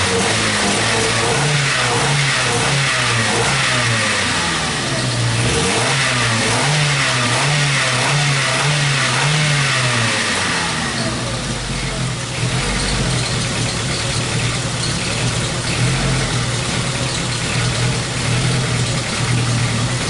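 Ford Focus engine running, its speed rising and falling in a repeating pulse for several seconds before settling into steadier running. It is still misfiring a little after a new fuel pressure sensor was fitted.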